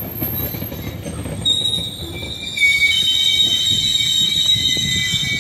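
GO Transit bilevel coaches rolling past with a low rumble, joined about one and a half seconds in by a high, steady squeal from the wheels and brakes that grows louder midway as the train slows to a stop.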